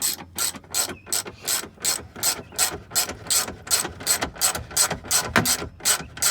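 Hand ratchet clicking in quick, even strokes, about three a second, as a bolt is run in and tightened.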